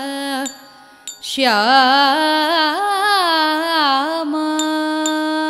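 Carnatic vocal singing of a Sanskrit verse. A held note breaks off about half a second in. After a short pause a new phrase enters with wide, rapid pitch oscillations (gamakas), then settles into a long steady held note.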